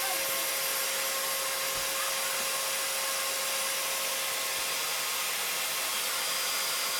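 Household vacuum cleaner running steadily: an even rush of air with a steady whine on top.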